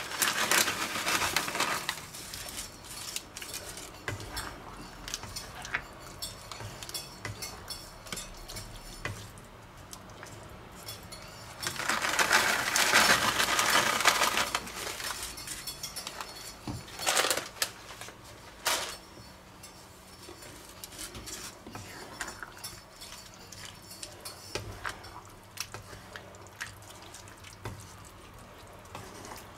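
Wooden spatula stirring and scraping through a pan of sauce and wok noodles, with a few sharp knocks. About twelve seconds in, a plastic bag rustles for two or three seconds as dry noodles are shaken into the pan.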